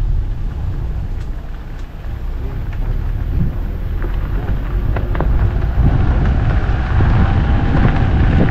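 Car driving, a steady low road rumble with a few light sharp ticks.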